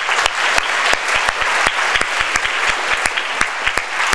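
An audience applauding: a steady round of clapping from many people, welcoming a speaker to the floor.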